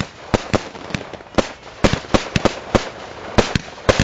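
Fireworks firing close by: a quick, irregular run of sharp bangs, about a dozen in four seconds, over a steady background of noise.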